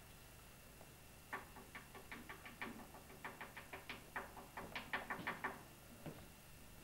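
Quick taps of a flat blade's edge on a hard desktop as white powder is chopped into a line, about five light clicks a second. They start about a second in and stop shortly before the end.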